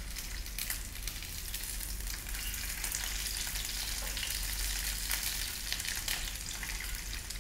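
Beef sausages frying in sunflower oil in a non-stick pan: a steady sizzling hiss with scattered small crackles as they are turned with tongs.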